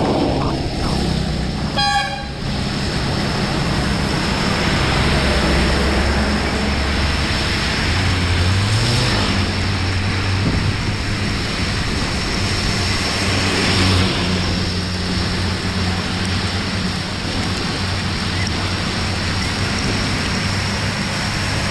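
Steady noise of rain and traffic on a wet road, with a short vehicle horn toot about two seconds in and a low engine hum underneath.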